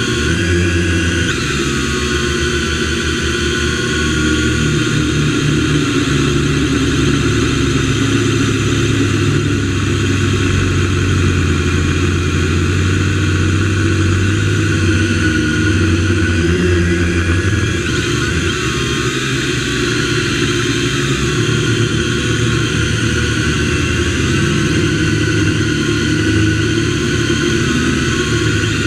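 MJX X101 quadcopter's motors and propellers buzzing steadily in flight, recorded close up by a camera mounted on the drone. The whine wavers up and down in pitch as the throttle changes.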